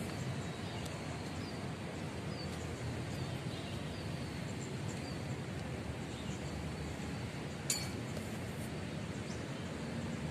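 Open-air background: a steady low rumble with faint, short bird chirps scattered through it, and one sharp click about three quarters of the way in.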